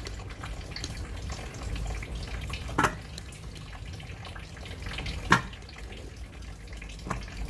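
Metal tongs lifting pickled cucumbers out of brine in a plastic jar: the brine splashes and drips. Three sharp clicks of the tongs, near 3 s, just past 5 s (the loudest) and near 7 s.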